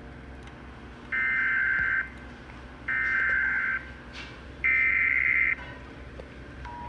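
Emergency Alert System SAME header: three identical bursts of screechy digital data tones, each just under a second long and about a second apart. Near the end, the steady two-tone EAS attention signal begins.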